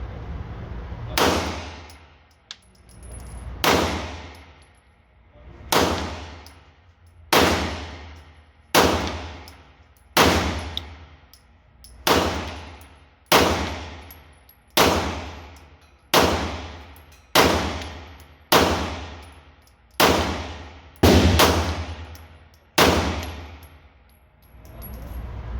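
CZ75-clone semi-automatic pistol fired slowly, about fifteen single shots one to two seconds apart, each shot ringing out in the echo of an indoor range.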